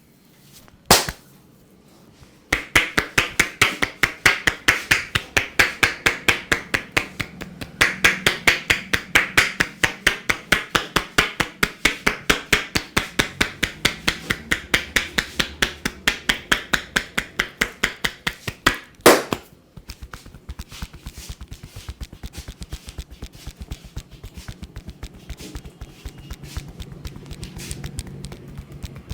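Percussive massage: hands slapping and chopping in a fast, even rhythm of several hollow claps a second. A single sharp smack comes about a second in and a louder one about two-thirds through, after which the strikes turn into lighter, quicker tapping.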